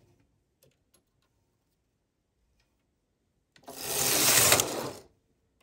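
Carriage of a Singer 328 Memo-Matic knitting machine pushed once across the needle bed, knitting a row in a rushing, rasping slide of about a second and a half, starting about three and a half seconds in. A couple of faint clicks come before it.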